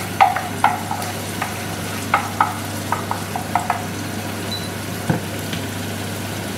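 Onion and tomato paste sizzling in a frying pan while a wooden spoon stirs and scrapes it, giving a run of clicks and knocks against the pan over the first four seconds. One more knock comes about five seconds in, after which only the sizzling goes on.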